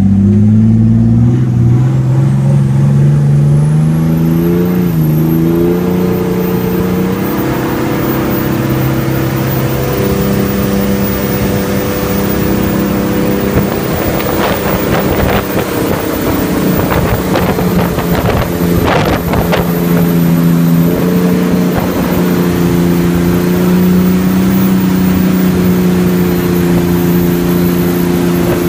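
Jet boat's engine revving up over the first few seconds, then running steadily at speed with small shifts in pitch. Water spray from its wake rushes and splashes loudly around the middle.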